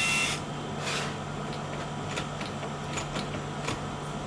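Smart door lock keypad: a short beep with a brief rush of mechanical noise at the start, a second noisy burst about a second in, then a scatter of light clicks from the lock mechanism, as the default code is entered and accepted.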